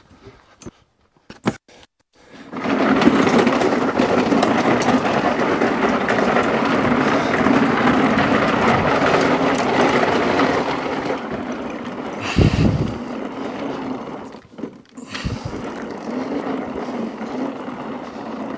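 A push lawnmower being wheeled along, its wheels and body rattling steadily as it rolls, starting a couple of seconds in after a few light clicks, with a heavy thump about twelve seconds in.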